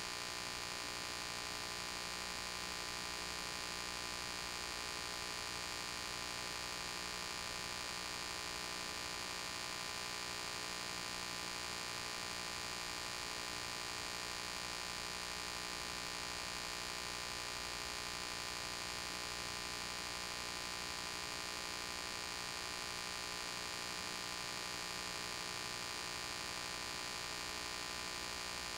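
Steady electrical hum made of many fixed tones, with a constant hiss and no other sound: the noise floor of an old silent film transfer.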